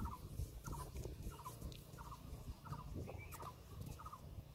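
A bird calling over and over in short bursts of three or four quick notes, roughly two bursts a second, over a low rumble.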